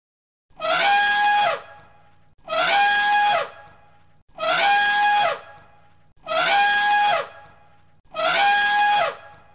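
Elephant trumpeting: the same brassy call played five times in a row, each about a second long, holding one pitch and then dropping at the end.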